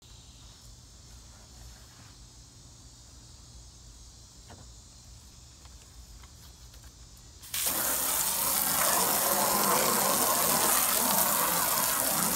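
Garden hose trigger nozzle spraying water against a car's front bumper: the spray starts suddenly about two-thirds of the way in and then runs steadily and loudly. Before it, only a faint background.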